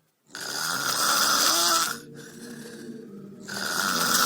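Snoring: two long, loud snores of about a second and a half each, the first starting just after a brief silence, with a quieter stretch between them.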